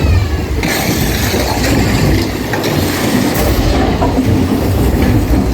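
Big Thunder Mountain Railroad mine-train roller coaster running along its track: a loud rumble and clatter of the cars' wheels on the rails.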